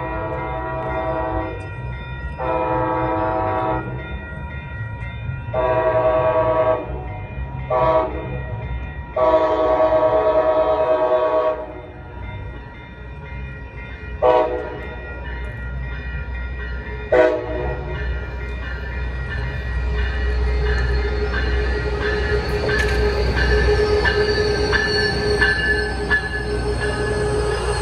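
Coaster commuter train's Siemens Charger locomotive arriving and sounding its horn: five blasts, the fourth short, then two brief toots. After that the locomotive's rumble builds and a steady squeal sets in as it passes and slows into the station.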